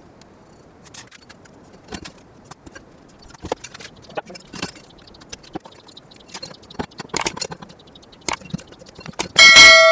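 Scattered light clicks, taps and knocks of workshop parts being handled. Near the end comes a loud metallic clang that rings on in several clear tones.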